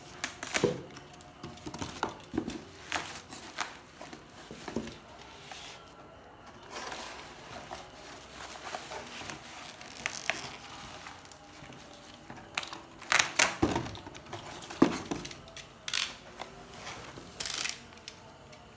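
Packaging of a replacement laptop LCD panel being unwrapped and handled: plastic crinkling and tearing with irregular rustles, clicks and knocks, loudest in a cluster about thirteen to fifteen seconds in.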